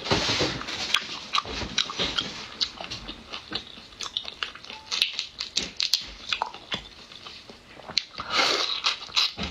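Close-up eating sounds: wet chewing and lip smacking with many sharp clicks as sauce-coated prawn is bitten and chewed. Longer wet sucking noises come at the very start and again about a second before the end.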